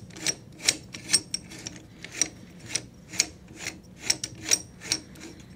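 Metal barrel nut of a Tippmann Arms M4-22 rifle being unscrewed by hand along the barrel threads. It gives a steady run of short metallic clicks and scrapes, about two a second.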